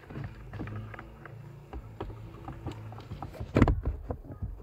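Light plastic taps, clicks and scraping as a replacement heater blower motor is worked up into its housing under a Skoda Superb's dashboard. A few louder knocks come about three and a half seconds in and again near the end.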